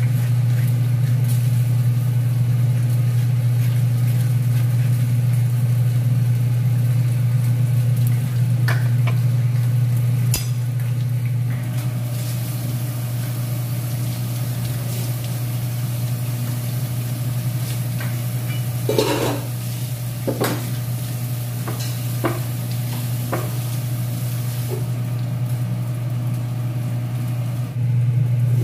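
A steady low machine hum runs throughout under kitchen work on a bitter melon: the seeds being scraped out, then tap water running over it as it is washed. Several sharp knocks and clinks come in the second half.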